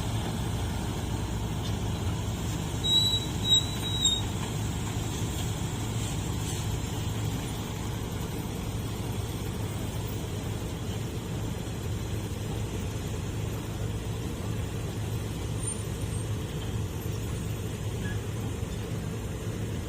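Steady low rumble of road vehicles running, with three short high-pitched squeaks about three to four seconds in.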